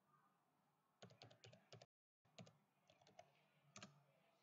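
Faint computer keyboard typing: a quick run of keystrokes about a second in, then a brief cut to total silence, then more keystrokes.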